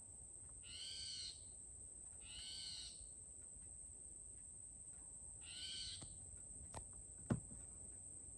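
An owl giving three short calls a second or more apart, each about half a second long with a slight rise and fall in pitch. Near the end come two sharp clicks, the second one louder.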